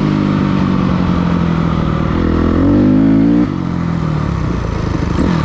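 Dirt bike engine running at a steady speed, then revving up over about a second before the throttle is chopped about three and a half seconds in, where the pitch and loudness drop suddenly and the engine runs on lower.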